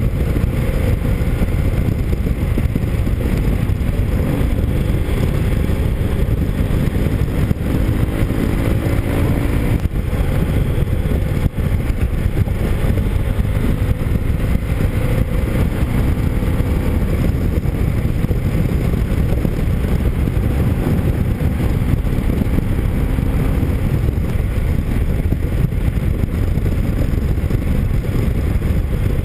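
Motorcycle riding at road speed: a steady heavy rumble of wind on the microphone over the engine, whose note rises and falls a little with the throttle.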